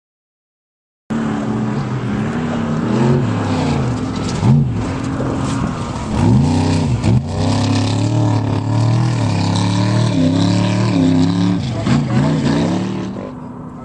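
Off-road race vehicle engines running loud, with repeated rises and falls in pitch as they rev or pass by. The sound starts abruptly about a second in and drops away near the end.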